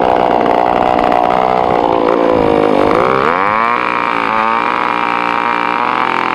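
Small gas engine of a stand-up motor scooter revving for a burnout, its pitch climbing sharply about three seconds in and held high to spin the rear wheel against the pavement.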